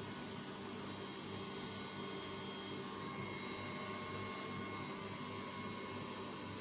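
Acmeenjoy 1 L self-cooling compressor ice cream maker running with a steady hum.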